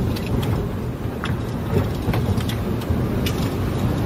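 Car driving on a snow-covered road, heard from inside the vehicle: a steady low rumble of engine and tyres, with a few scattered sharp ticks.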